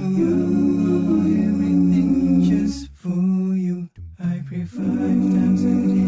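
A cappella vocal music: voices singing without instruments, breaking off briefly about three seconds in before resuming.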